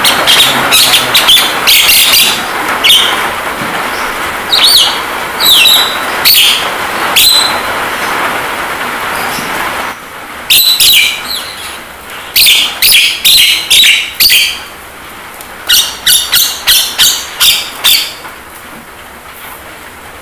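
Javan myna calling: loud, harsh, scratchy calls in short bursts, several coming in quick runs of about three a second. Under them runs a steady rain hiss that drops off about halfway through.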